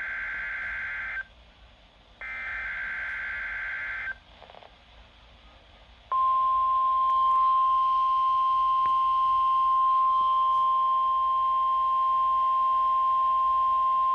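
NOAA Weather Radio Required Weekly Test. A Specific Area Message Encoding (SAME) data burst ends about a second in, and a second buzzy data burst of about two seconds follows. After a short gap, the tone alert system's single steady warning tone starts about six seconds in and holds. These tones are the signals that switch on weather radio receivers.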